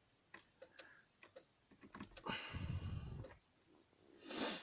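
A scatter of light clicks and ticks, with a breathy rustle in the middle and a shorter one near the end.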